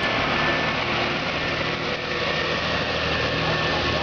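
Heavy tandem-axle truck's diesel engine running as it drives close past and pulls away, with a steady hiss over it.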